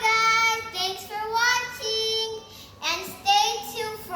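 A young girl singing a few long, held notes that slide up and down in pitch, in several short phrases.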